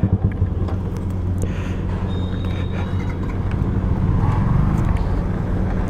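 Yamaha R15M's single-cylinder engine running steadily at low revs, a continuous low hum.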